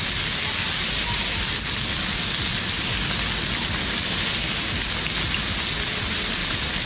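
Chilli-masala-coated fish frying in oil on a hot flat iron griddle, a steady, even sizzle.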